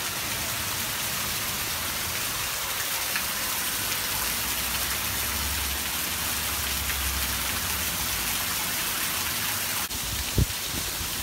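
Torrential rain pounding down, with water pouring off a carport roof faster than the gutter can carry it. A low rumble swells in the middle, and a single sharp thump comes near the end.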